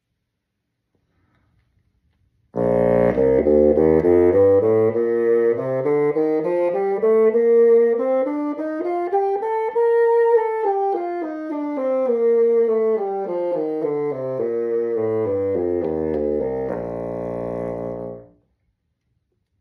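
Bassoon playing a scale, stepping note by note from its low register up about three octaves and back down again, ending on a held low note. The playing starts about two and a half seconds in and stops shortly before the end.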